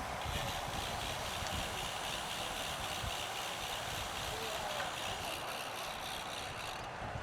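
Bicycle freehub clicking rapidly while coasting, a high buzz that starts just after the beginning and stops about seven seconds in, over wind rumbling on the microphone.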